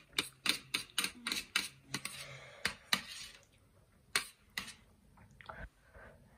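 Steel chopsticks clicking and scraping against a steel tray as noodles are gathered up: a quick run of sharp clicks, about three or four a second, for the first three seconds, then two more clicks a little past four seconds.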